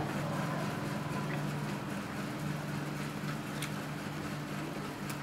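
A steady low mechanical hum, with a few faint ticks.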